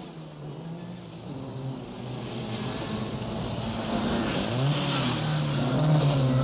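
Several Mini Cooper engines revving hard as the cars race past, getting steadily louder, with a hiss over the top. The pitch of one engine dips and rises again about halfway through.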